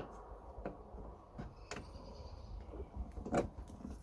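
Scattered light clicks and knocks of a gas strut's end being handled and worked against the boot lid's ball-stud mounts, with one louder knock near the end.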